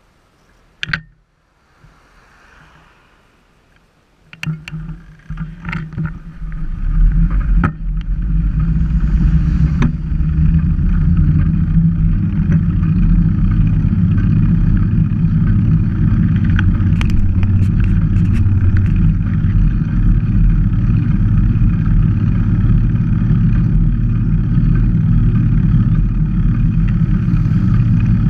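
Wind noise on an action camera's microphone as a mountain bike sets off and rides along a road, building up over a few seconds and then holding steady, with tyre noise and scattered clicks and knocks from the bike. A single sharp knock comes about a second in, before the bike gets going.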